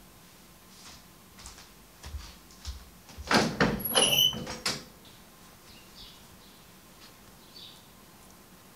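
Wooden clothes hangers sliding and knocking on the rail of a metal clothes rack as a garment is taken off, a burst of clacks with a short squeal lasting about a second and a half, starting about three seconds in. Soft cloth rustles before and after.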